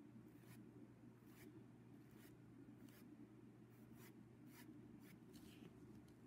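Faint scratchy strokes of a paintbrush loaded with acrylic paint on fabric, repeating roughly once a second, over a low steady hum.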